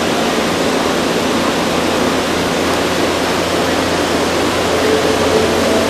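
Steady rushing roar under a covered railway platform as a Shinano Railway 115 series electric train approaches from a distance, with a low steady hum beneath. A faint short tone sounds about five seconds in.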